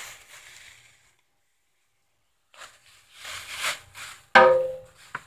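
Kitchen items being handled and moved about: rustling and light knocks, a brief loud pitched sound about four seconds in, and a click just before the end.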